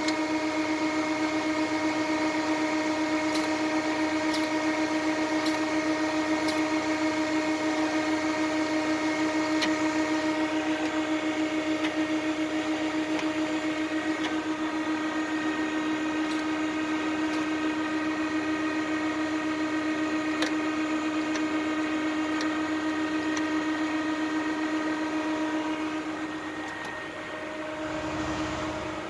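Muratec MW100 twin-spindle CNC turning center running with a steady whine and a few faint clicks. The whine drops away shortly before the end.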